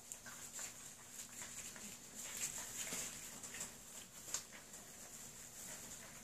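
A litter of whippet puppies eating dry kibble from a steel bowl: irregular crunching and small clicks.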